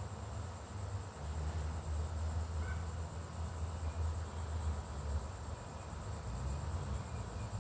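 Steady high-pitched chorus of insects, such as crickets, with a low rumble underneath.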